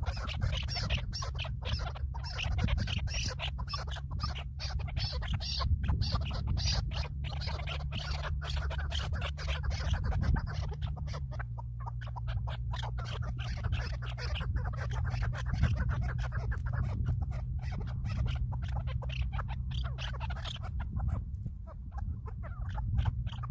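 Birds calling in rapid, irregular squawks over a steady low hum that drops in pitch partway through.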